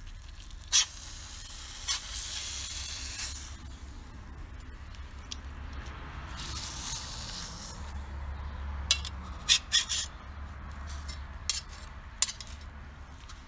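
Grilled shashlik being pushed off a flat metal skewer with a knife: the blade scrapes along the skewer in hissing slides, with sharp metallic clicks, several close together near the middle. A low rumble runs underneath.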